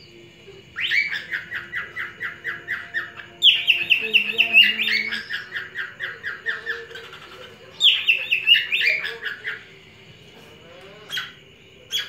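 Cockatiel chirping in three bouts of rapid repeated notes, about five a second, with one short call near the end: a male's whistling call to a female.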